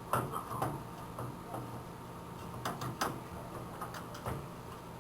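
Irregular light clicks and knocks of hard computer parts being handled and fitted while a desktop system unit is reassembled, over a faint steady hum.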